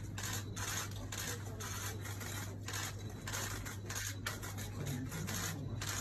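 Many camera shutters firing in rapid, overlapping bursts from a press pack at a photo call, several clicks a second without pause, over a steady low hum.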